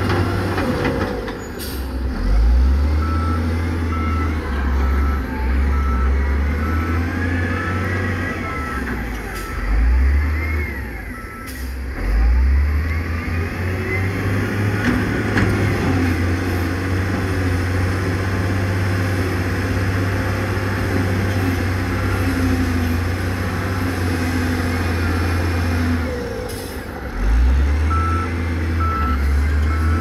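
Heavy diesel engines of dump trucks running and revving, rising and falling in loudness, with a reversing alarm beeping steadily for about eight seconds from a few seconds in and again near the end. A few short air hisses, typical of air brakes, are heard among them.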